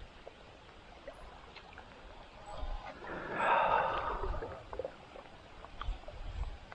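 A person breathing out hard once, a gasp or sigh swelling and fading about three seconds in, over a few faint scattered ticks.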